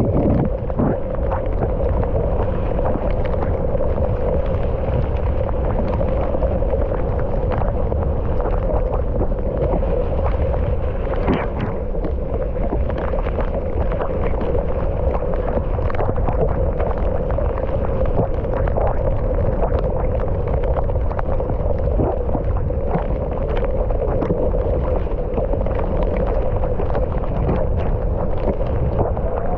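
Mountain bike riding down a trail: steady wind rush over the microphone and rolling rumble, with frequent sharp clicks and rattles from the bike over rough ground.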